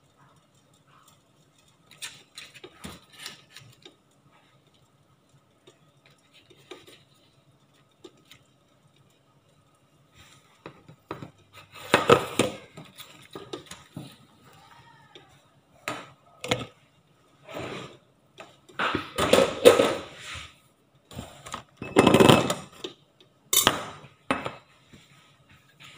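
Kitchen utensils and cookware clinking and clattering in scattered bursts, with a few light clicks early on and louder clatters through the second half.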